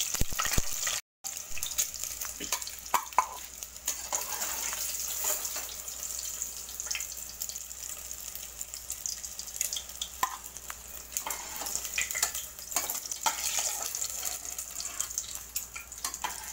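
Hot oil sizzling steadily around boiled eggs frying in an aluminium pressure-cooker pan, with scattered light clinks and scrapes of a perforated steel skimmer against the pan as the eggs are lifted out. The sound cuts out briefly about a second in.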